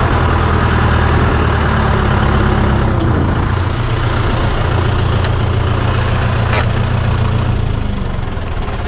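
Tractor's diesel engine running steadily at a low, even speed, its note shifting slightly about three seconds in.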